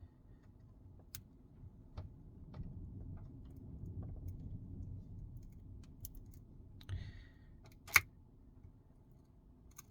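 Scattered light clicks and taps of a pry tool and fingers on a Samsung Galaxy Z Flip 5 as its folding screen is worked up from the frame, with a low rubbing rumble from handling. One sharper click comes about eight seconds in.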